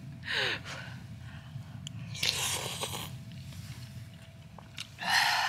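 A person eating a mouthful of hot soup: chewing, with a few breathy huffs blown out to cool the scalding food.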